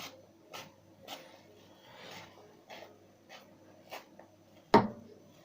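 Short rubbing or scratching strokes, repeated about twice a second, with one sharp knock near the end.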